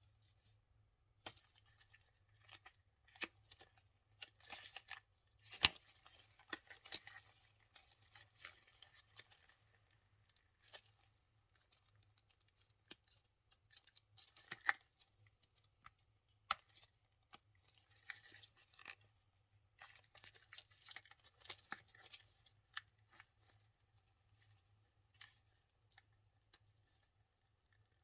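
Silicone mold being peeled and flexed off a cured resin casting: faint, scattered peeling and crackling sounds with occasional clicks.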